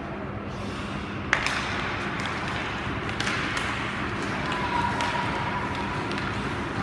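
Ice hockey rink ambience during play: a steady noisy background with one sharp knock about a second and a half in, a softer knock near the middle, and scattered light clicks, as from sticks, puck and skates on the ice and boards.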